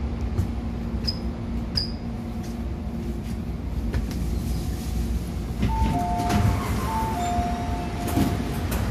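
Steady low rumble inside an MTR A-Train car standing at a station. From about six seconds in, an electronic door chime sounds, alternating between two notes for a few seconds as the doors open.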